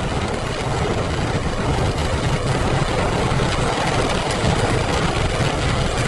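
Steady rumble and hiss inside a moving car's cabin: engine and tyres running on a wet road.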